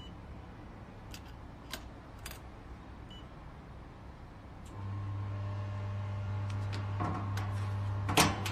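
A fiber laser welding machine powering up after its system key is turned. A few light clicks are followed, about five seconds in, by a steady electrical hum that starts abruptly and holds, with a sharp click near the end.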